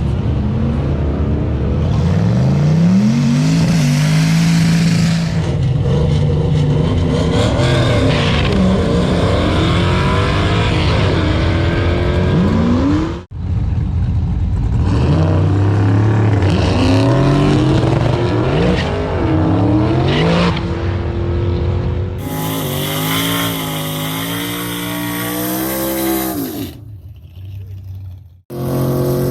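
Drag car's V8 engine accelerating hard at full throttle, its pitch climbing and dropping back at each gear change, several times over. The sound breaks off abruptly about 13 seconds in and starts again.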